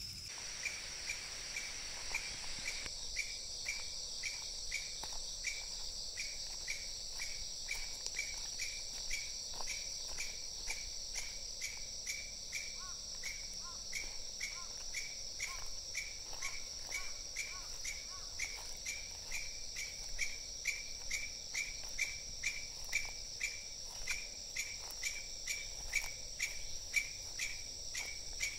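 Insects in summer undergrowth: a steady high buzz, with a short chirp repeating about twice a second.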